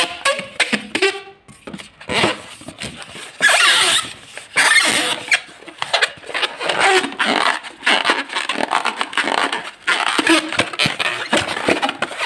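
Latex modelling balloons squeezed and rubbed by hand, giving irregular rubbery squeaks and scrapes, with pitched squeaks in the first second or so.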